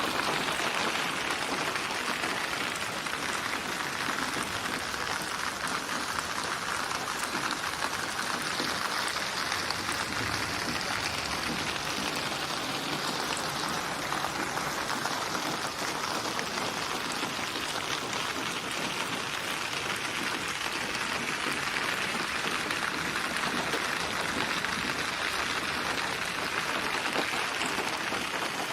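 Steady rain falling, a dense even hiss with slow, gentle swells in intensity.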